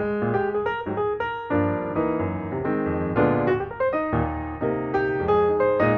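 Background piano music: a gentle melody of struck notes with a bass line.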